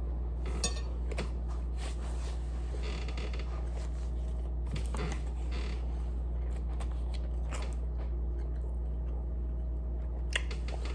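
Plastic water bottle crackling and creaking in the hand as it is picked up and drunk from, in scattered short clicks over a steady low hum.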